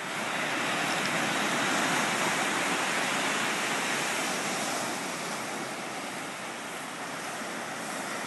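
Sea surf washing onto a beach: a steady rushing noise that eases slightly in the second half.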